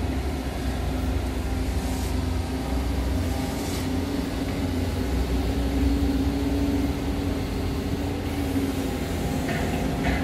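Hydraulic excavator's diesel engine running steadily as the bucket digs into soil, a low rumble with a constant hum. A few short scraping strokes come near the end.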